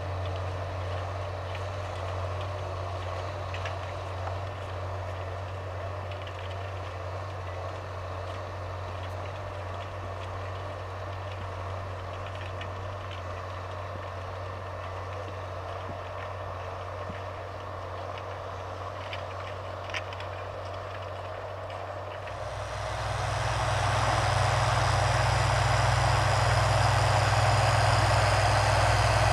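Tractor engine running steadily under load, growing clearly louder and heavier about three quarters of the way through.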